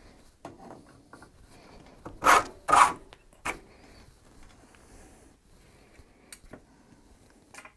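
Plastic cable cover scraping and rubbing as it is wrenched loose with tongue-and-groove pliers, with two loud short scrapes a little over two seconds in and a few smaller clicks and knocks around them.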